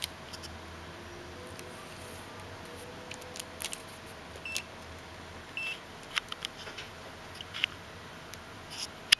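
Scattered clicks and taps as the OWON HDS1022M-N handheld oscilloscope-multimeter is handled and its keys are pressed, with two very short high beeps from the instrument about halfway through.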